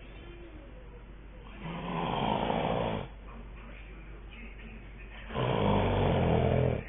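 A man snoring in his sleep: two loud snores about a second and a half long each, some four seconds apart, with quieter breathing between.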